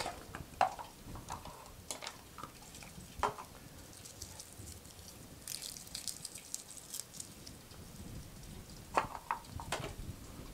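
Quiet kitchen handling sounds: scattered light clicks and knocks as things are picked up and set down at a cutting board, with a faint papery crackle around the middle as a garlic bulb is handled. Two slightly louder knocks come near the end.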